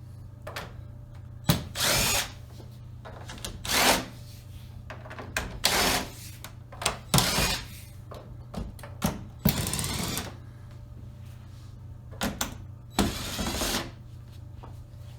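Power screwdriver backing screws out of a TV's plastic back cover in short runs of under a second, about six of them, with small clicks between.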